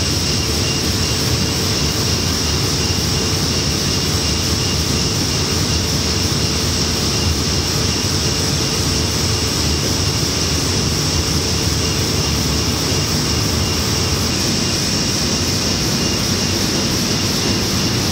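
Printing-house machinery running with a dense, steady mechanical noise at an unchanging level. A faint steady hum sits underneath and drops out about fourteen seconds in.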